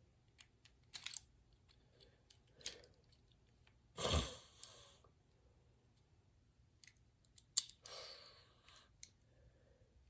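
Faint clicks and rustling as small plastic toy parts of a helmet push-button mechanism are handled and fitted together. There is a louder knock about four seconds in and a sharp click a little past halfway.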